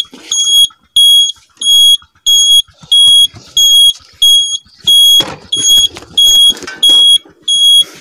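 A motorcycle's electronic beeper sounding a loud, steady, high-pitched beep about three times every two seconds, the kind of buzzer that sounds with the turn indicators or the alarm when the switches are worked with the key in the ignition.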